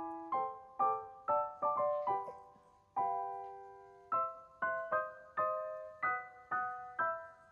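Background music: a gentle piano-like keyboard tune of chords struck about twice a second, with one longer held chord about three seconds in.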